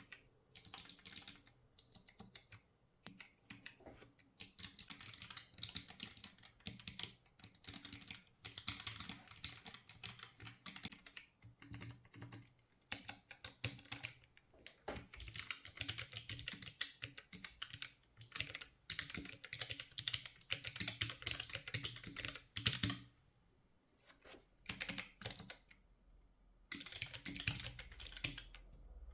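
Typing on a ZSA Voyager split keyboard fitted with Kailh Choc Robin low-profile clicky switches: fast runs of crisp key clicks in bursts, broken by short pauses.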